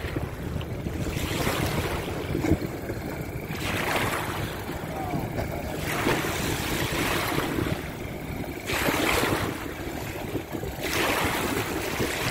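Small waves washing against the shore in repeated surges every couple of seconds, with wind buffeting the microphone.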